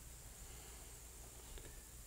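Near silence: faint room tone, a steady low hum and hiss, with one faint click about a second and a half in.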